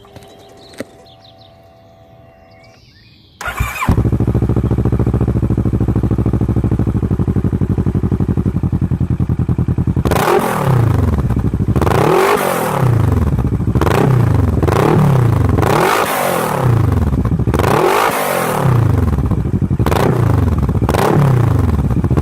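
A few faint clicks, then about three and a half seconds in the Kawasaki ER6N's parallel-twin engine starts and idles loudly through a Blackwidow 200mm end can with a chopped, intermediate baffle. From about ten seconds in it is blipped repeatedly, six revs rising and falling about two seconds apart.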